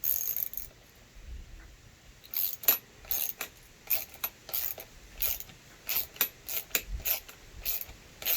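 Ratchet wrench clicking in short strokes while a lever pivot bolt is turned in, about two clicks a second from roughly two seconds in.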